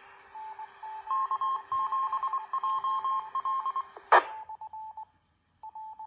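Repeater's transmission coming back through a Baofeng UV-82 handheld's speaker: hiss with a quick run of on-off beeping tones, then a short loud burst of static about four seconds in and a few more short beeps. The reply shows the repeater was keyed up successfully.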